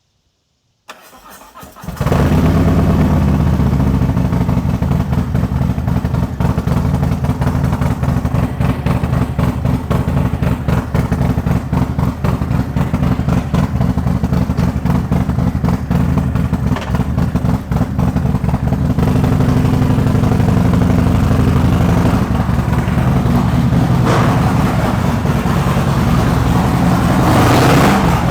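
Harley-Davidson Road Glide V-twin started through its Trask 2-into-1 exhaust: the starter cranks about a second in, the engine catches at about two seconds, then runs at a loud, lumpy idle, rising slightly near the end.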